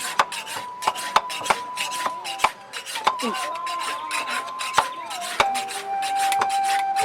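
Repeated sharp strokes of a blacksmith's hand tools on the metal of a weeder blade being made, about two a second at an uneven beat. A flute plays long held notes over them, stepping down to a lower note about five seconds in.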